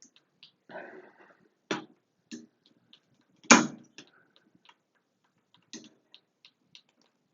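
Small clicks, knocks and a brief scrape of the shower valve's cartridge retaining clip being worked back into the valve body past the tile, with one sharp click about three and a half seconds in.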